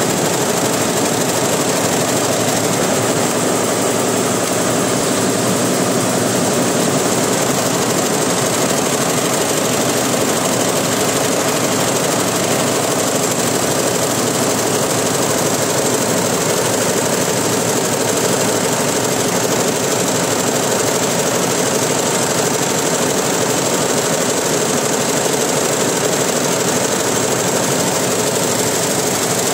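Computerized embroidery machine running, its needle head stitching metallic silver cord onto fabric in a steady, continuous mechanical clatter.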